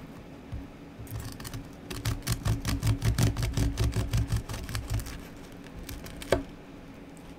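Kitchen knife sawing through the crisp, caramelised crust of a canelé, a run of rapid crunching crackles for a few seconds, then one sharp click near the end.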